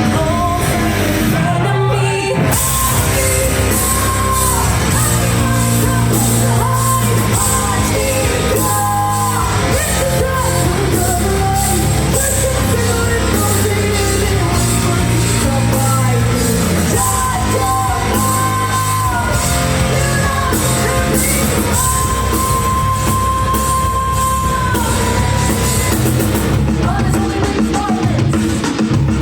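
Rock band playing live: drums, bass and electric guitar under a woman's sung lead vocal. The cymbals and full drums come in about two seconds in and drop out near the end.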